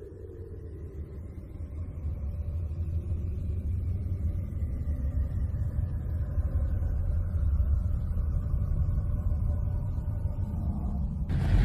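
A deep rumble slowly builds in loudness, with a faint high tone rising and then falling above it. Near the end a much louder, rushing noise cuts in suddenly.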